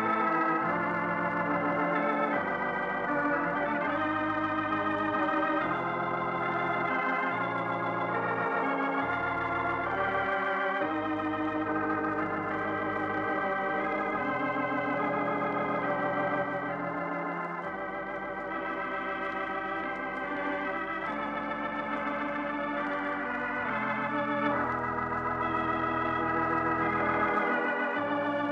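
Organ music closing the radio program: held chords with a wavering vibrato over a bass line that changes every few seconds.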